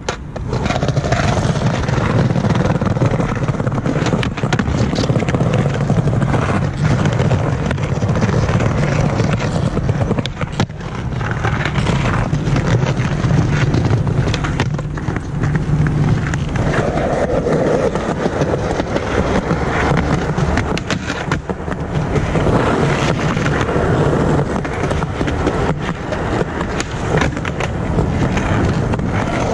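Skateboard wheels rolling over paving, a steady rumble broken by frequent clicks and knocks.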